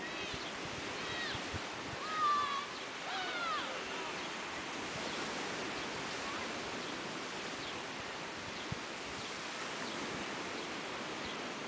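Surf washing steadily on a beach. A few faint high calls rise and fall over it in the first few seconds.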